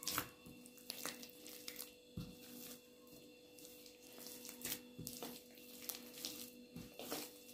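Hands kneading soft yeast dough worked with oil: faint, scattered squishes and light taps, over a faint steady hum.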